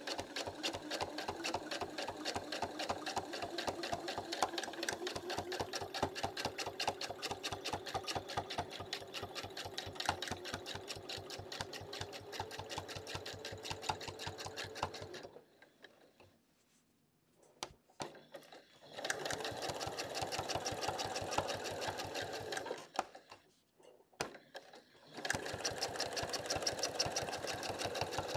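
Domestic sewing machine free-motion quilting, its needle stitching in a fast, even rhythm for about fifteen seconds, then stopping. Two shorter runs of a few seconds each follow, with a few single light clicks in the pauses between them.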